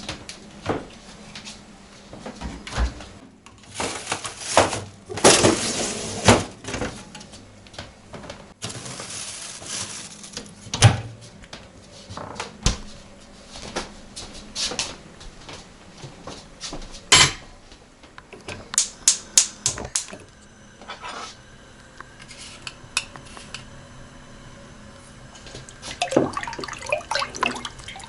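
Kitchen clatter: dishes, pots and cutlery clinking and knocking in a string of sharp clicks, with a couple of longer rushing stretches near the start.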